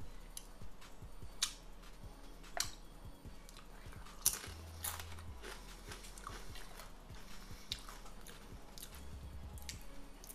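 A person chewing a crisp tortilla chip, with irregular sharp crunches every second or so, the loudest about four seconds in.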